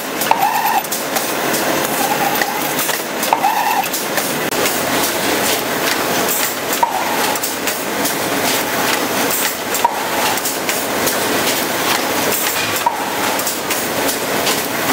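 HM-ZD6418 automatic rigid box making machine running: a steady mechanical clatter of rapid clicks, with a short higher tone repeating about every three seconds.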